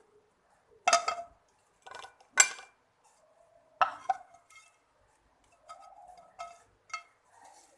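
A kitchen utensil scraping and clinking against a frying pan and plate as an omelet is lifted out of the pan onto the plate. It comes as a series of short knocks and scrapes, the loudest about a second in and about two and a half seconds in, with softer ones after.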